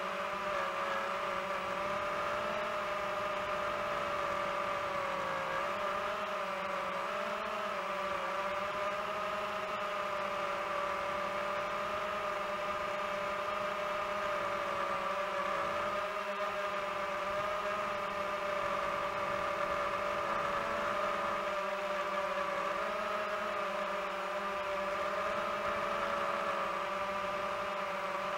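DJI FPV drone's motors and propellers whining steadily in flight, the pitch wavering slightly as the throttle shifts.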